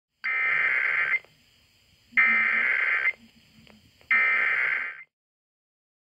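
Emergency Alert System SAME header: three bursts of digital data tones, each about a second long, spaced about a second apart. These are the coded bursts that open an alert.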